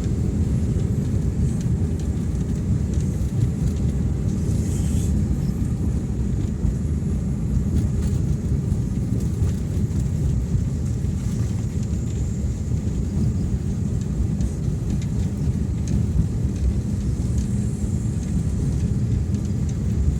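Vehicle travelling along a road: a steady low rumble of engine and road noise, even throughout.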